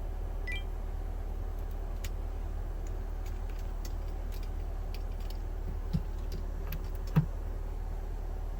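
A steady low machine hum, with scattered light clicks and taps, a short chirp near the start, and two soft knocks about six and seven seconds in.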